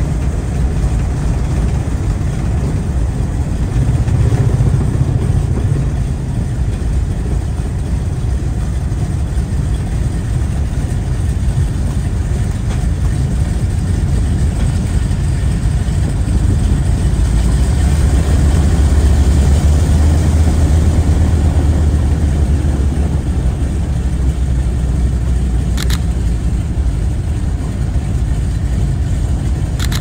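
Ford Tri-Motor's radial engines running at taxi power, heard from inside the cabin beside the right-hand engine: a steady deep drone that swells for a few seconds past the middle. Near the end there is one sharp click.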